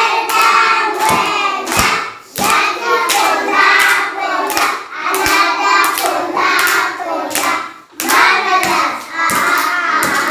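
A group of young children and a teacher singing a song together while clapping their hands in a steady beat, about two claps a second.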